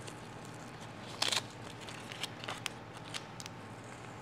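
Small handling noises from a kick-panel speaker-pod mock-up being held and turned by hand: a short rustling burst about a second in, then a few scattered faint clicks, over a faint steady hum.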